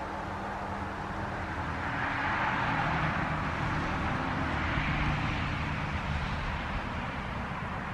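Wind gusting through a birch tree's leaves: a rushing rustle that swells about two seconds in and eases off near the end, over a low steady hum.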